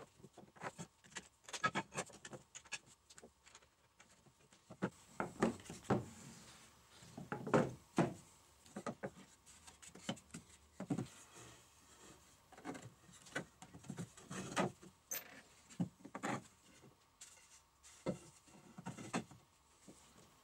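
Wooden folding-chair parts being handled and fitted together on a wooden workbench: irregular clacks and knocks of wood on wood, with some rubbing and sliding between them.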